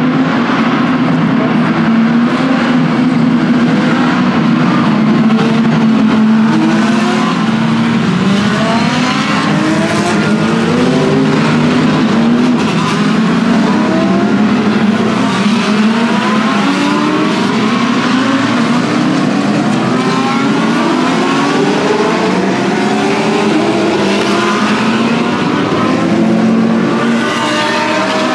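A pack of race cars accelerating past together at the race start, many engines overlapping, each note rising through a gear, dropping at the shift and rising again.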